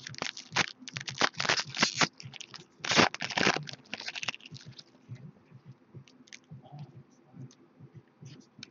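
Trading cards and a plastic card sleeve being handled close to the microphone: a dense run of crinkling, scraping rustles for the first four and a half seconds, then softer scattered clicks and slides as cards are sorted.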